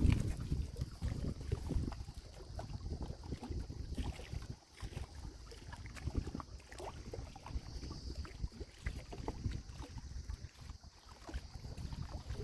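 Wind buffeting the microphone as an uneven low rumble, over small water sounds and scattered clicks, with a steady high hiss throughout.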